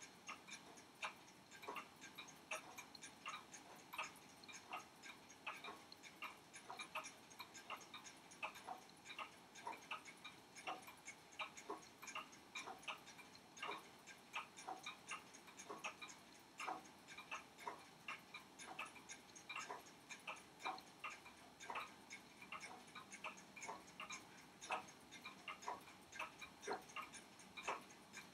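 Mechanical pocket watch ticking, faint, quick and even, several ticks a second.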